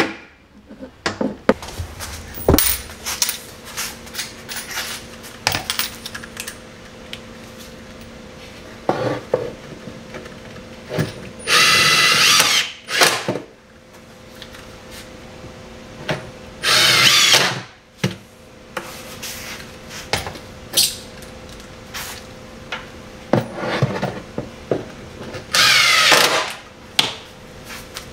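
Cordless impact driver driving screws up through corner braces into the underside of a wooden butcher block countertop. It runs in three longer bursts of a second or so and a few short ones, with small clicks and knocks of handling in between.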